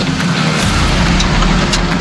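Jeep Wrangler driving slowly past at close range, its engine running steadily.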